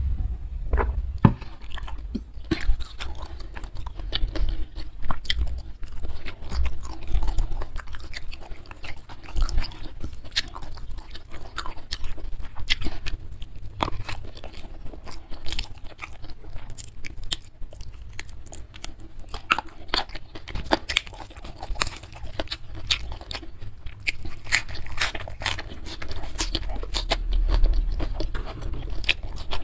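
Close-miked eating sounds: steady chewing with many sharp, irregular crunches from a mouthful of rice, spicy beef and raw petai and young jengkol beans.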